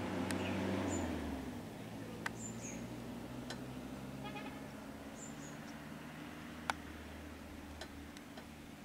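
Vehicle engine running at a steady idle, its low hum dropping in pitch about a second in and then holding steady.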